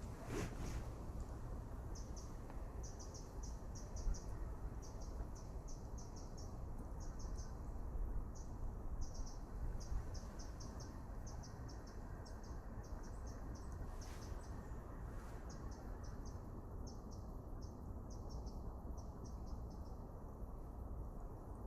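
Cricket chirping: short high chirps in quick clusters of two to four, repeated over and over, above a steady low rumble, with a few sharp clicks.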